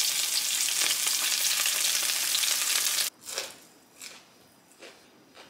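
Breaded mozzarella sticks sizzling as they fry in a pan, a dense steady hiss that cuts off suddenly about three seconds in. A few faint, soft sounds follow.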